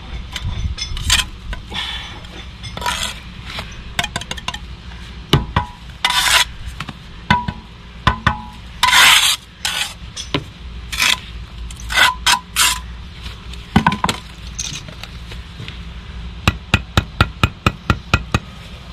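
Irregular clinks and knocks of hand tools and building materials being handled, some with a short ring, ending in a quick run of about a dozen even taps.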